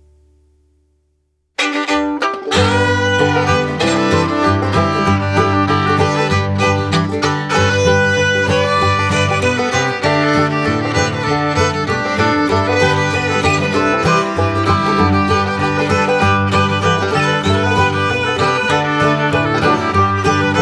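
Background music: the end of one track fades out into a moment of silence, then a new track with a repeating bass line starts abruptly about a second and a half in and plays on.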